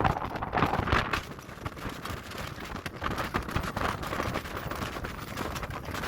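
Gusty storm wind buffeting the microphone, an uneven rushing noise with crackling ticks throughout.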